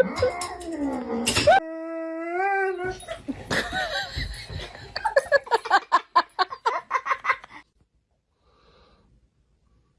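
A dog whining in long, wavering cries, then a quick run of short yips. It goes almost silent about three-quarters of the way in.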